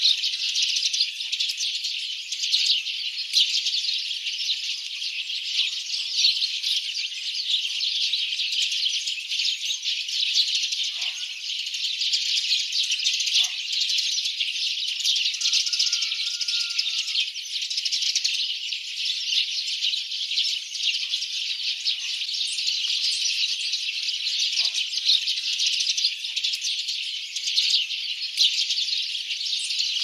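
Many small songbirds chirping and twittering together in a dense, unbroken chorus at a steady level.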